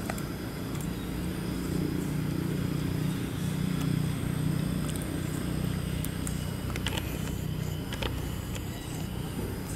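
Steady low engine hum, a little louder in the middle, with a few faint clicks near the end.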